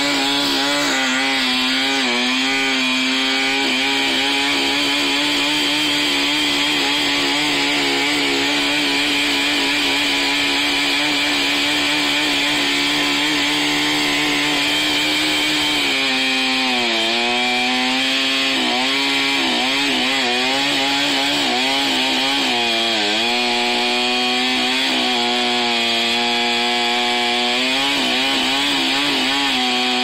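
Chainsaw running steadily at high revs, its pitch dropping and recovering several times in the second half as it is loaded cutting into a thick tree trunk.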